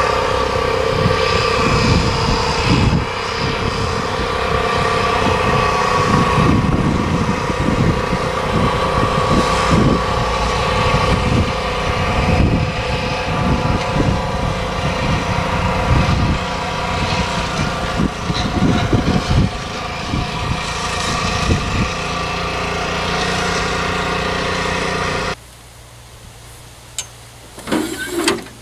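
Quad bike with a front-mounted Rammy Brush cutter 120 ATV mowing on a slope: the cutter's small petrol engine and the ATV engine run steadily, with uneven low thumps for most of the time. A few seconds before the end the engine sound cuts off abruptly to a much quieter background with a few clicks.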